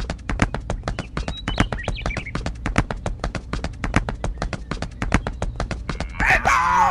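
Hoof clip-clop, a quick, even run of sharp clicks, for an ox pulling a cart, with a pitched voice-like call coming in near the end.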